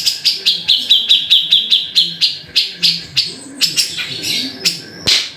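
Grey-cheeked bulbul (cucak jenggot) calling in a fast string of short, sharp notes, about six to eight a second, which slow and break up in the second half.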